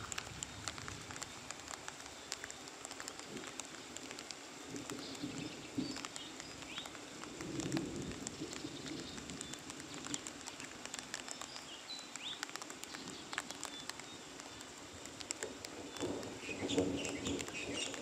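Light rain pattering in scattered drops, with a few birds chirping now and then.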